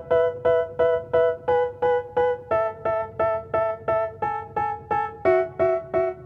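Music: an instrumental keyboard passage of repeated piano-like chords struck about three times a second, the chord changing twice, with no vocals.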